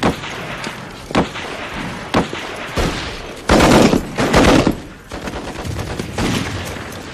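Battle gunfire: separate rifle shots in the first few seconds, then a loud, dense burst of rapid machine-gun fire around the middle, with scattered shots after it.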